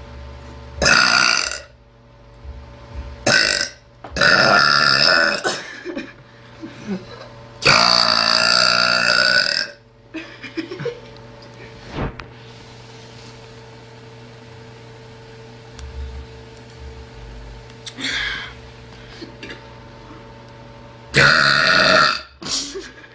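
A girl burping loudly, about six times, with a long gap after the first four. Some burps are short; the longest runs about two seconds.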